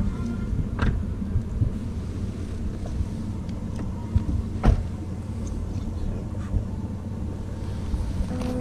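An engine running steadily as a low rumble, with two sharp knocks, about a second in and just before the five-second mark.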